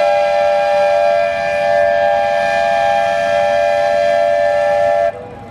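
Train horn blowing one long, steady chord of several notes that cuts off suddenly about five seconds in.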